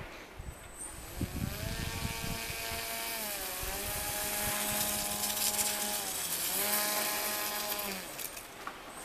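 Small radio-controlled model sled's motor running as it drives over snow, a buzzing whine that climbs in pitch about two seconds in, eases back, climbs again and drops away near the end as the throttle is worked.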